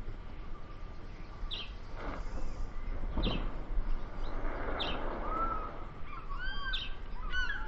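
Wild birds calling: short high chirps about once a second, then a quick run of looping whistled calls near the end, over a steady low background rumble and a brief rush of noise in the middle.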